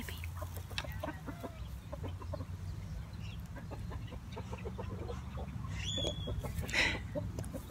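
Chickens clucking, many short clucks one after another, with a brief higher squawk about six seconds in. A steady low hum runs underneath.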